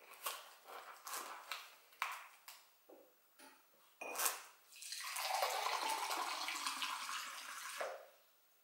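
A few knocks and clicks as a glass is handled at the tap of a boxed spring-water cask, then water runs from the tap into the glass for about three seconds and stops near the end.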